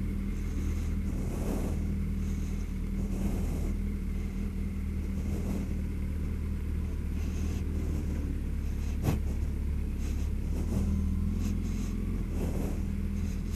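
Suzuki B-King motorcycle's inline-four engine running steadily at low revs while the bike creeps along at walking pace. A soft rushing sound comes every couple of seconds, and there is a single sharp click about nine seconds in.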